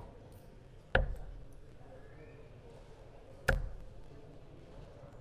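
Two steel-tip darts striking a Winmau Blade 6 bristle dartboard, two sharp thuds about two and a half seconds apart.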